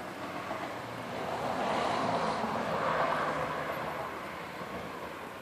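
A passing vehicle: a rushing noise that swells over a couple of seconds and fades away again.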